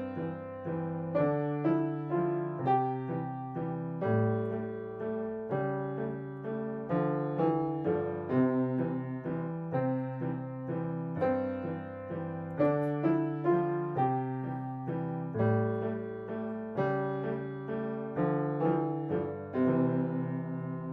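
Piano duet: a child plays a simple melody in 3/4 time on an acoustic grand piano, in C position, at a steady tempo without pauses, while a digital piano accompanies with lower notes.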